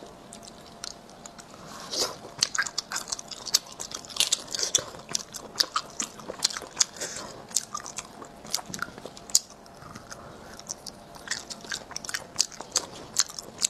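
Close-miked chewing of spicy sea snail meat: irregular clusters of sharp, crisp crunching clicks, starting about two seconds in.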